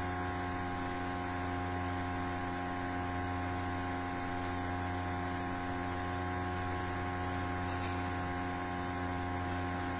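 Steady electrical mains hum: a low buzz with several higher tones on top, unchanging throughout.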